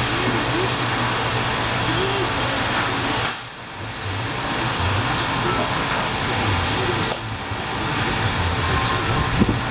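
Air-powered oil extractor running on shop compressed air, a steady loud hiss as it sucks the remaining oil out of the engine, with a brief drop about three seconds in.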